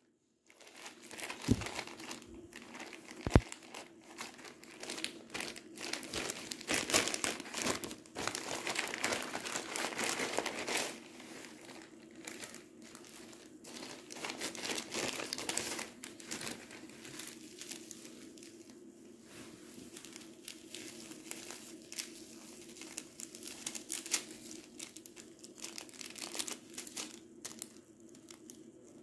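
Plastic courier mailer and cellophane packaging crinkling as it is opened and handled by hand. The crinkling is densest from about six to eleven seconds in, and there are two sharp knocks in the first few seconds.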